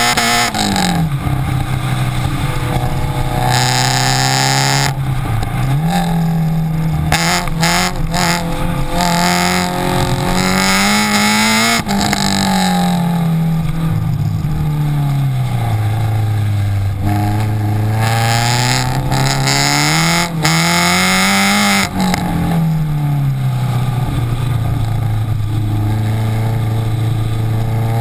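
Exhaust note of a Renault Clio 172 Cup's 2.0-litre four-cylinder, heard at the tailpipe under hard driving. The revs climb and drop off several times over the stretch.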